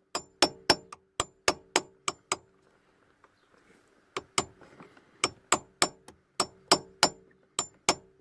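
Hammer blows on a tool set into the head of a snap-off security bolt on a VW steering lock: quick, sharp metallic strikes about three a second, each with a short ring, pausing for nearly two seconds midway. The blows are cutting an indentation in the sheared bolt head so it can be driven round and unscrewed.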